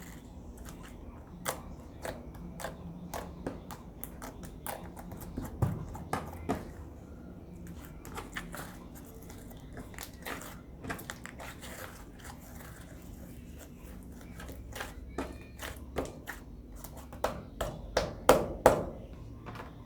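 Slime being squeezed and poked by hand, giving irregular sharp clicks and pops. The pops come most thickly and loudest near the end.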